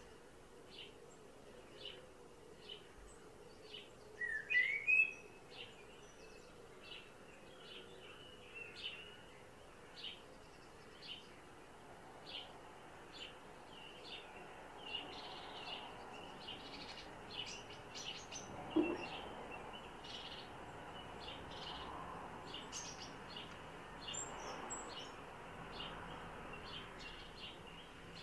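Faint bird calls: short high chips repeating about once a second, with one louder rising call about four seconds in.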